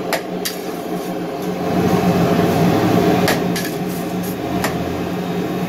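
Metal ladle clanking and scraping against a steel wok as mee goreng is stir-fried, several sharp strikes over steady sizzling and gas-burner noise.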